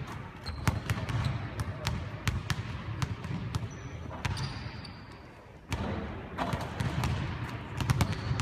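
Basketballs bouncing on a hardwood court: sharp, irregular thuds that come several times a second, with a brief lull about five seconds in.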